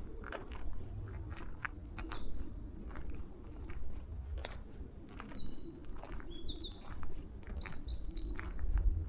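A small songbird singing a long, fast song of high twittering notes and short trills, over footsteps along the path.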